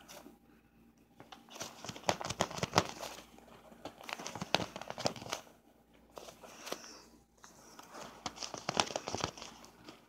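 Flexible plastic dryer-vent tubing crinkling and crackling, handled with a ferret inside it. The sound comes in four or five short bursts of rustling with sharp clicks, with quieter gaps between.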